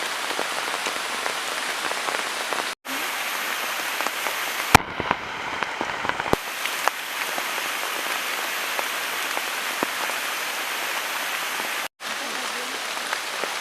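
Steady rain falling, a dense hiss with many separate drops ticking close by. It drops out for an instant twice, and for a second or two in the middle it sounds duller with a few sharper drop hits.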